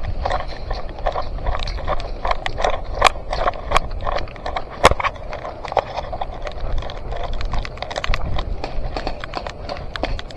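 Footsteps of an airsoft player walking, with gear and rifle knocking and clicking at an uneven pace over a low rumble of movement. One knock about five seconds in is the loudest.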